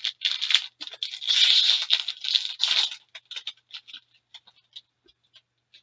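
Packaging torn open and rustled: the wrapping on a sealed box of hockey trading cards being ripped off. It goes in a flurry of tearing and crinkling for about three seconds, then dies down to a few small clicks and rustles.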